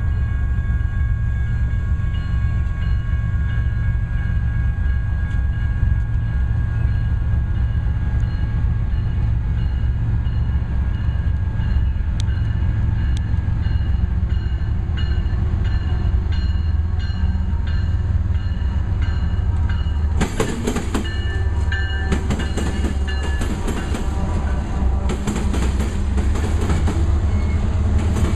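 Grade-crossing warning bell ringing over the rumble of a Union Pacific freight train led by GE diesel locomotives as it approaches and runs through the crossing. From about two-thirds of the way in, loud clattering rail and wheel noise comes in bursts as the locomotives reach the crossing.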